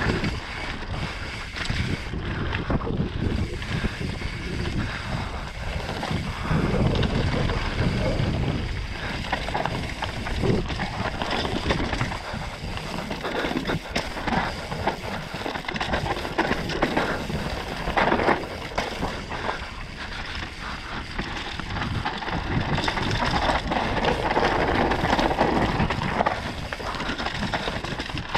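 Mountain bike descending a dirt singletrack at speed: wind rushing over the microphone, tyres rolling over dirt and loose stones, and frequent knocks and rattles from the bike over bumps.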